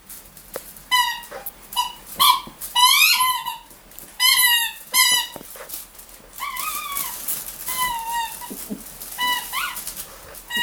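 A dog chewing a squeaky toy, making it squeak over and over: a run of short squeaks and a few longer wavering ones, starting about a second in.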